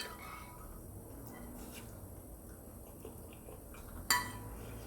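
Quiet eating at a bowl of noodles, with a few soft utensil taps and one sharp clink of a utensil against the bowl, briefly ringing, about four seconds in.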